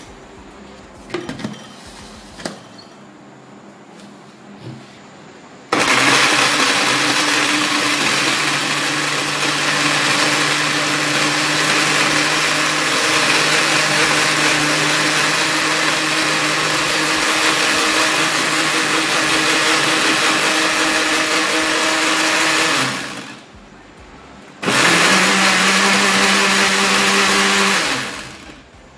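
Countertop electric blender chopping sliced ginger. A few knocks as the jar is handled, then the motor runs steadily for about seventeen seconds and winds down. After a short pause it runs again for about three seconds.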